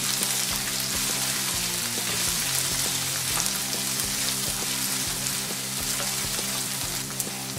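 Sweet corn, capsicum and onion sizzling steadily in a nonstick kadhai while a wooden spatula stirs them. Soft background music with held notes plays underneath.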